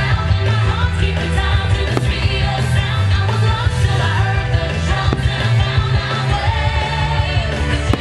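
Rock-pop song with singing, played loud, with a few sharp firework bangs cutting through the music.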